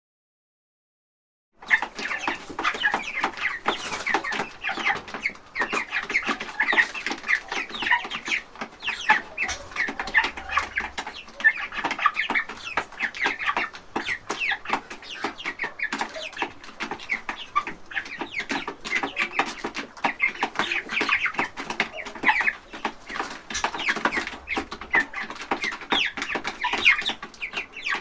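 A flock of chickens clucking, many short calls overlapping without a break, starting after a second or two of silence.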